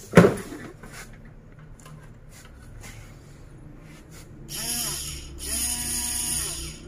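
Kitchen Master 8-in-1 hand blender's 300-watt motor with its chopper blade fitted, run empty in the air twice in short bursts of about a second each, speeding up and winding down each time. A loud knock comes right at the start.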